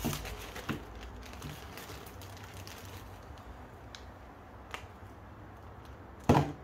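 A plastic bag of brake master cylinder repair-kit parts crinkling and rustling as gloved hands open it and take the parts out, with a few light clicks. Near the end there is one short, loud knock as a part is set down in a plastic tub.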